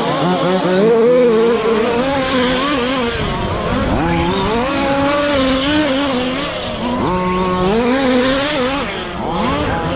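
Several radio-controlled short course trucks racing together, their motors running at once, each one's pitch rising and falling with the throttle. Sharp climbs in pitch come about three and a half and seven seconds in.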